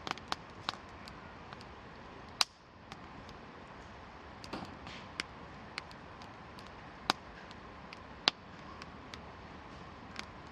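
Wood campfire crackling, with sharp irregular pops over a steady hiss; the loudest pops come about two and a half seconds in and about eight seconds in.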